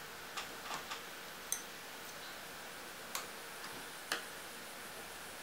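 Light clicks and taps of a paintbrush being handled at a plastic watercolour palette: about half a dozen short, sharp ticks scattered irregularly over a faint steady hiss.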